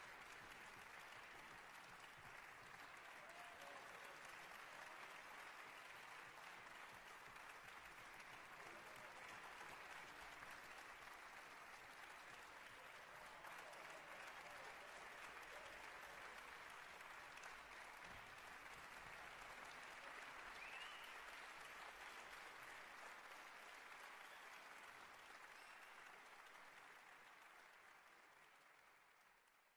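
Faint steady noise with a fine crackling texture, fading away over the last few seconds.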